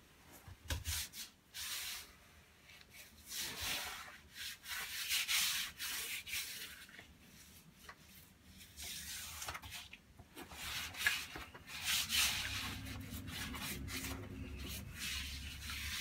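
A 4-inch paint brush used as a paper-hanging brush, swept in a series of strokes over freshly pasted paintable wallpaper to smooth it onto the wall: bristles and paper rubbing with a hissing swish.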